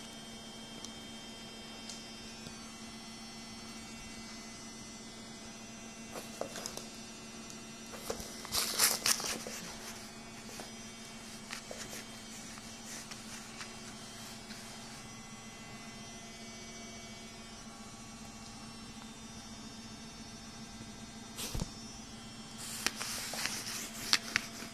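Steady electrical mains hum. Brief bursts of scuffling and rustling come about eight seconds in and again near the end, with a few soft knocks, as the dogs play with a cloth on the floor and rug.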